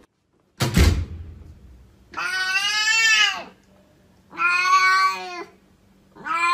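Domestic cat giving three long, drawn-out meows, the first rising and falling in pitch, the last still going at the end. A single thump comes just before, about half a second in.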